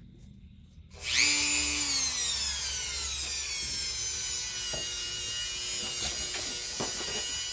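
Small power drill drilling a hole through a circuit board. It starts abruptly about a second in, and its whine falls in pitch over the next couple of seconds, then holds steady as it cuts, with a few faint clicks.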